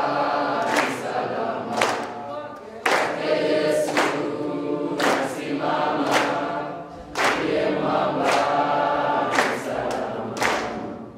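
A group of young voices singing together, with hand claps roughly once a second.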